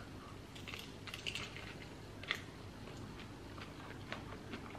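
A person biting into and chewing a crisp romaine lettuce leaf wrapped around tomato, feta and avocado: a run of faint crunches, one louder crunch about two seconds in.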